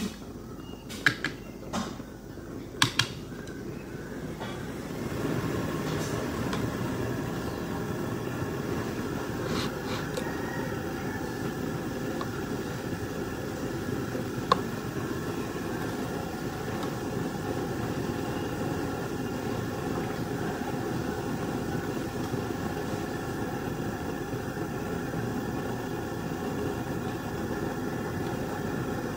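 A few sharp knocks and clicks, then a steady electric motor hum, fan-like, that starts about five seconds in and runs on evenly.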